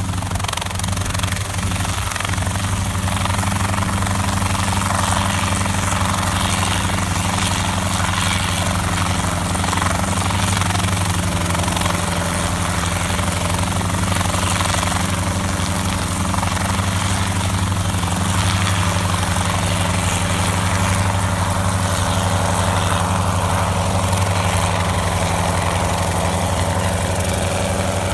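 Schweizer 300 (Hughes 269) light helicopter running at flying speed, lifting off from grass into a low hover and climbing away: a steady engine drone with the rapid beat of the rotor blades.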